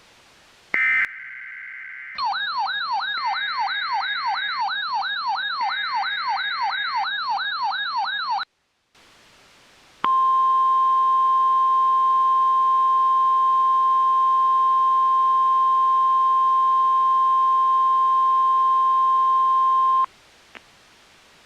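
Emergency alert tones. A brief burst of EAS header data comes about a second in, then a warbling siren-like alert tone rises and falls about three times a second for about six seconds. After a short gap, a steady single-pitch weather radio warning alarm tone is held for about ten seconds.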